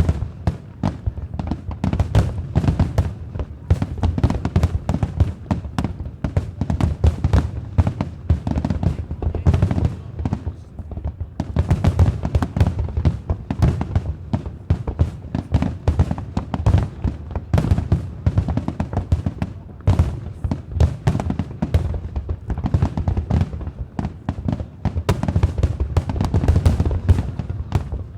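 Fireworks display: a dense, rapid run of shell bursts and bangs, with music playing along.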